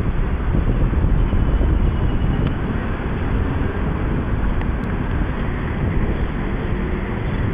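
Strong wind buffeting the microphone: a steady, rough low rumble with no clear tones.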